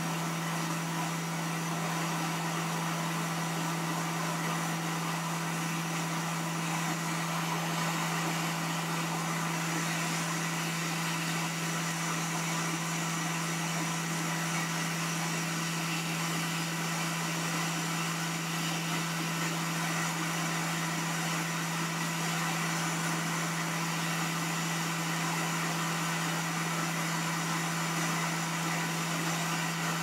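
Hot air rework station blowing steadily onto a circuit board: a constant airy rush over a steady hum. The hot air is reflowing the solder under a tiny replacement connector so that it seats itself on its pads.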